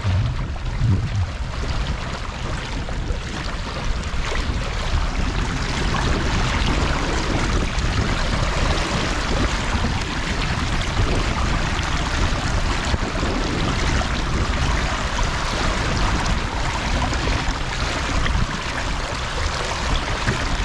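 Seawater rushing and splashing steadily around a mesh net basket held in the sea against a boat's hull.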